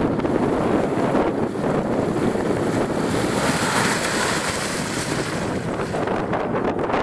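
Wind buffeting the microphone over a Jeep Wrangler driving through a muddy, water-filled bog, its engine running and its tyres splashing through mud and water. The noise swells about four seconds in as the Jeep passes close.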